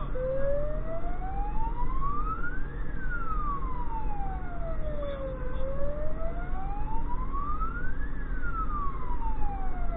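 Fire engine's wail siren heard from inside the cab, sweeping slowly up and down in pitch, two full rises and falls of about five seconds each. The truck's engine and road noise run underneath.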